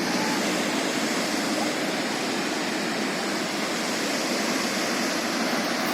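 Valara waterfall's water falling and rushing in a steady, even roar.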